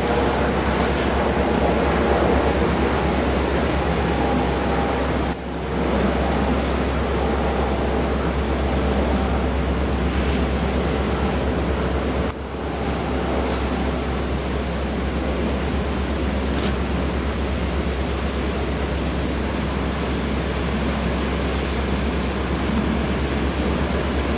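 Steady rushing noise of a high-speed carbon-fibre catamaran ferry running close by, its KaMeWa waterjets churning a heavy wake, with some wind on the microphone. The noise briefly drops twice, about five and twelve seconds in.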